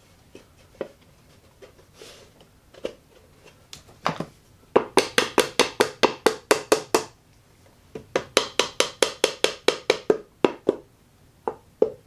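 Claw hammer driving small nails into a cedar fence-picket birdhouse. A few light setting taps come first, then two quick runs of blows, about four a second, and two more blows near the end.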